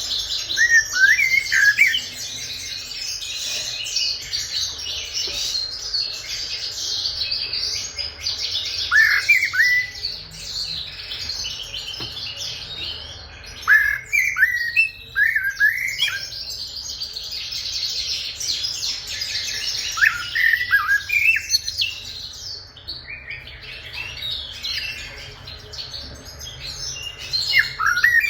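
Common blackbird singing short phrases of sliding notes five times, over continuous dense twittering from many small birds.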